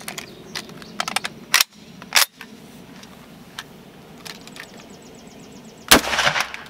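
A few sharp metallic clicks and clacks as a .30 Carbine rifle is handled and readied, then about six seconds in a single loud shot of standard ball .30 Carbine fired at close range, with a short echo trailing after it.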